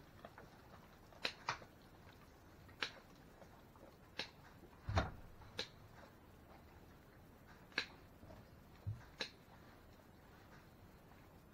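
Goat hoof trimming: about nine sharp snips and clicks at irregular intervals, with two dull thumps, the louder one about halfway through.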